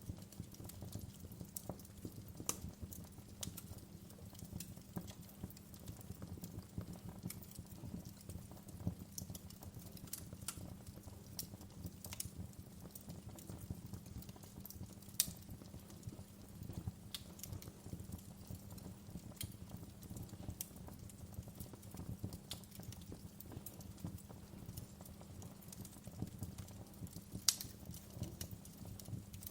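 Wood fire crackling in a fireplace: a low steady rumble under a constant scatter of small sharp pops and clicks from the burning logs, with two louder pops, one about halfway and one near the end.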